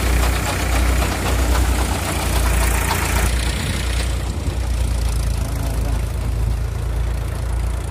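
Tractor engine running with a steady low pulse, driving a Bajaj wheat thresher whose drum makes a loud rushing noise as sheaves are fed in. About three seconds in the rushing noise drops away, leaving mainly the engine's low pulsing.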